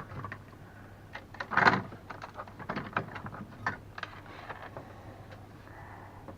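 Irregular light clicks and taps of small objects and tools being handled on a workbench, with a louder scrape or rustle about a second and a half in.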